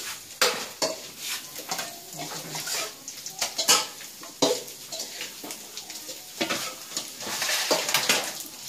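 Aluminium bowls, a wire strainer and a metal ladle clanking and scraping against each other as they are handled, with a string of sharp metallic knocks and a run of denser scraping near the end.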